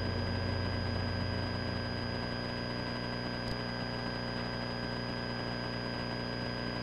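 Light aircraft's piston engine and propeller droning steadily in cruise flight, with a thin steady high tone alongside; the lowest part of the drone eases a little about two seconds in.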